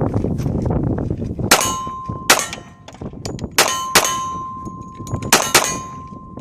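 Six shots from a .45 pistol, irregularly spaced and some in quick pairs, each sharp crack followed by a steel target ringing with a clear sustained tone.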